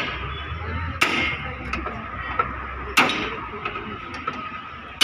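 Hammer tapping on a Toyota Innova's steel fender during dry dent repair: three sharp knocks, the second about a second after the first and the third two seconds later, with a few lighter ticks between them.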